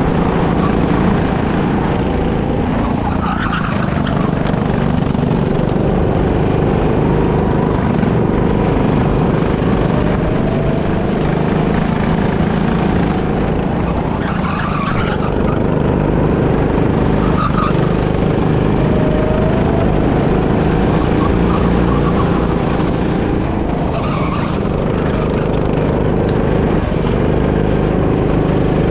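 Go-kart heard from on board, its engine running hard at racing speed with heavy rumble on the camera mic. Short tyre squeals come a few times as it takes corners.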